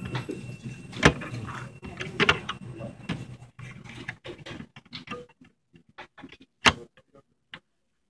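Clicks and knocks of a 2.5-inch laptop hard drive and its plastic drive caddy being handled in a mini PC's drive bay. The sharpest clicks come about a second in and again near the end. A steady low hum fades out partway through.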